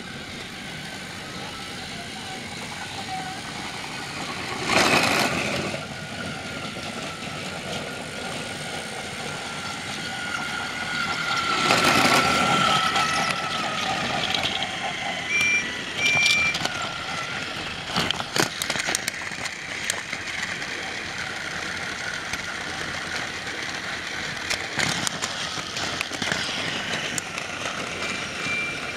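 Battery-powered Trackmaster toy train motor whirring along plastic track with a thin steady whine, joined by the clicks and clatter of plastic trucks. Two loud rushing noises come about five and twelve seconds in, and two short high beeps a few seconds later.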